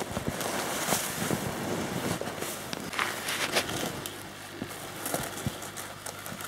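Footsteps in deep powder snow: irregular crunches and swishes, with clothing rustling.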